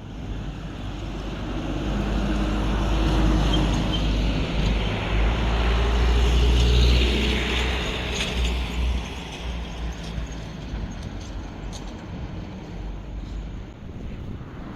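A road vehicle passing by: a rumbling noise that builds over the first several seconds, peaks around the middle, and then fades.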